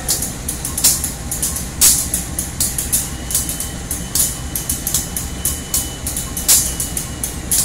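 CC203 diesel-electric locomotive running with a low rumble as it rolls slowly past, with many irregular sharp clicks and clanks.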